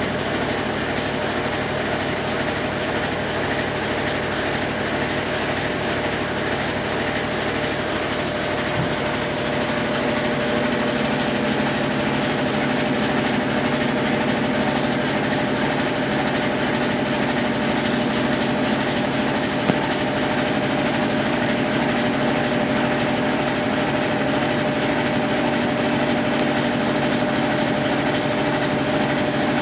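Consul Facilite 10 kg top-loading washing machine in its wash stage, its motor running steadily and a Brastemp BWL09 agitator churning water and dark clothes. A thin steady hum sits under the churning, which fills out a little about ten seconds in.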